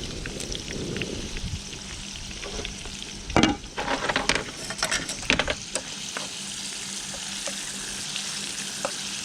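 Calamari and prawns sizzling in a hot frying pan with chili and parsley, a steady frying hiss. Between about three and six seconds in, a utensil clatters against the pan several times as the seafood is stirred.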